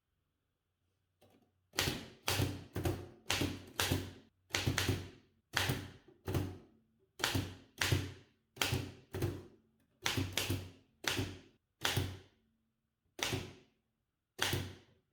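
Old typewriter being typed on slowly, one key at a time: about twenty separate, sharp typebar strikes at an uneven pace, starting about two seconds in.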